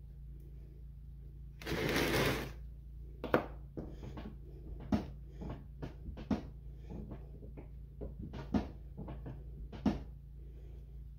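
A small bath bomb mold knocked against a wooden tabletop about ten times in irregular sharp taps, to loosen the packed bath bomb mixture inside. A brief rough rustling burst comes about two seconds in, before the knocking starts.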